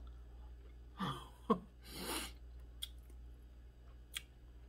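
Mouth and breath sounds of someone eating fish by hand: a short throaty noise about a second in, a breathy hiss around two seconds, and a few light clicks of the lips and tongue.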